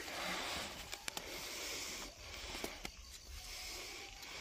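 Rustling of grass and leaves as freshly caught snakehead fish and eels are handled and picked up by hand, coming and going in patches, with a few sharp clicks about a second in and again near three seconds.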